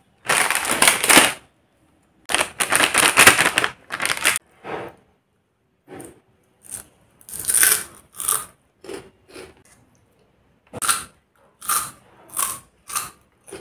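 A crinkly plastic snack packet is rustled and torn open in two long stretches, then a crunchy fried snack is bitten and chewed in short crackly crunches, roughly one every second or less.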